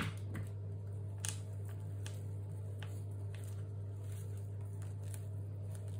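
Faint, scattered short rustles and crunches of potting mix being handled and pressed in by hand around an African violet, over a steady low hum.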